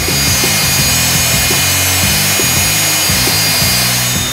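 Music with a stepping bass line over a loud, steady rushing noise and high whine of an aircraft auxiliary power unit's gas turbine running.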